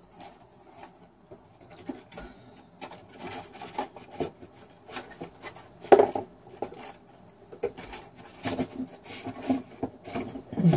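Irregular light clicks and clatters of paint pots being rummaged through and handled, with a louder knock about six seconds in.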